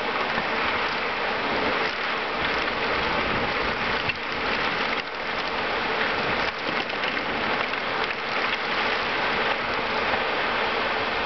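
Heavy rain falling steadily, a dense even hiss of drops striking surfaces.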